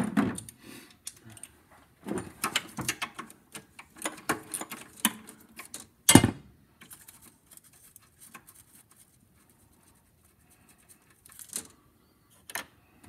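Metal hand tools clicking and rattling in short bursts, with one sharp clack about six seconds in and a few more clicks near the end.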